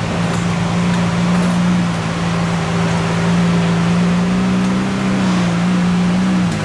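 A car engine running at a steady, held speed over a wash of background noise. Its pitch creeps up slightly about five seconds in, then drops near the end.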